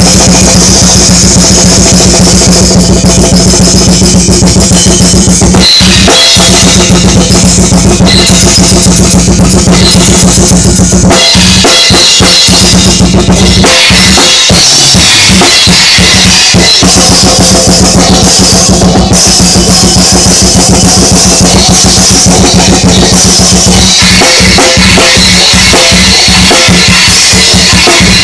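Acoustic drum kit played loud and fast in a death metal drum solo: a steady pounding bass drum, snare and toms. Cymbal crashes come and go in sections, with changes about 6, 11 and 24 seconds in.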